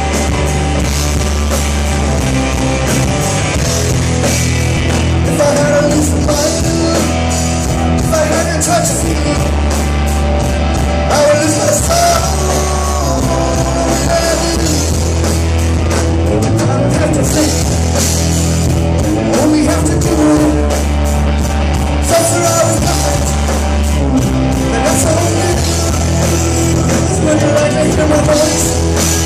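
Live rock band playing: electric guitars over bass guitar and drums, with a male voice singing into the microphone.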